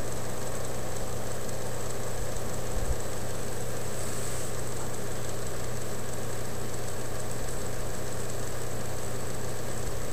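A steady mechanical hum with an even hiss over it, unchanging and without distinct strikes or clicks.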